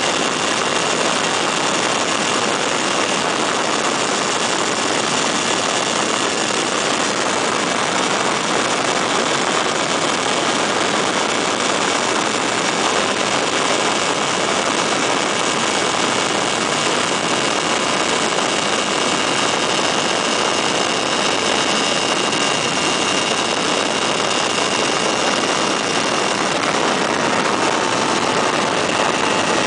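Weedhopper ultralight's two-stroke engine and propeller running steadily in cruising flight, with a constant rush of air.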